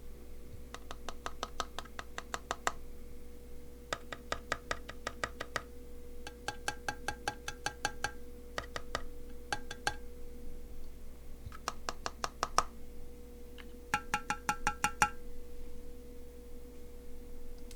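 Keys of a stock Keychron Q1 (knob version) aluminium mechanical keyboard typed in several quick runs of keystrokes, each stroke followed by a metallic ping. This is the case 'ting-ting' ringing that the knob version, though improved, still has out of the box.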